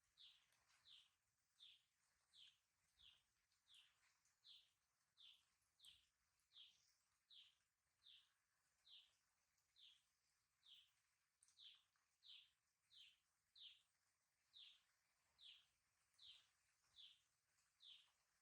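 Baby chick peeping: short, high, falling peeps repeated evenly, about one and a half a second, faint.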